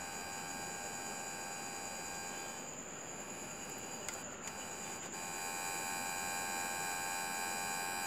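A toy RC car remote control's pulse-coded radio signal, picked up by a bare wire on a USB sound card's microphone input and heard as a steady electronic buzz with several overtones while a control button is held. It weakens a little in the middle and comes back stronger after about five seconds.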